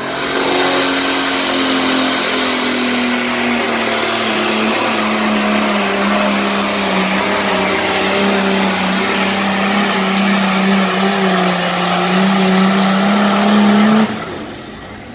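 The single-turbo engine of an International Limited Pro pulling tractor runs flat out while it drags the sled down the track. Its pitch sags slowly as the load builds, rises briefly near the end, then cuts off suddenly about fourteen seconds in as the run ends.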